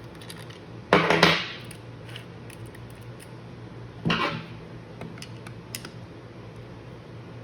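Handling clatter of a mini electric chainsaw's chain and parts as the chain is seated on the bar and sprocket: two short, loud rattles, about a second in and about four seconds in, with small clicks between.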